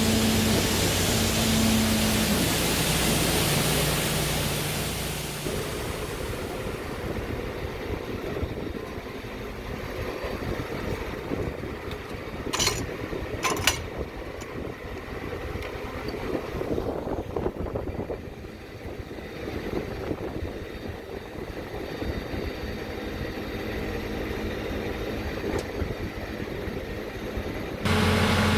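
Fendt 933 Vario tractor engine running with a steady hum, its pitch stepping down a couple of seconds in. From about six seconds the hum gives way to rumbling, fluttering wind noise on the microphone, with two sharp clicks near the middle. Near the end the loud engine hum cuts back in suddenly.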